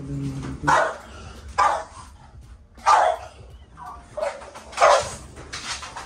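A dog barking repeatedly, about six sharp barks roughly a second apart.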